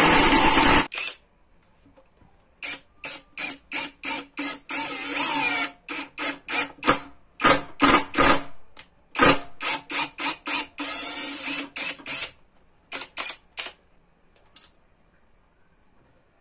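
Topshark 18 V cordless impact driver with a drill bit boring into a pine block. It runs steadily and stops about a second in. Then it is run in many short trigger bursts and a few longer runs, a motor whine starting and stopping, until it falls quiet near the end.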